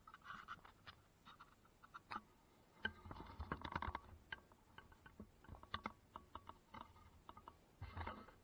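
Faint handling noise: scattered light clicks and small knocks as an Einhell benchtop bandsaw is tipped over and laid on its side on the workbench. A busier cluster of knocks and rustling comes a few seconds in.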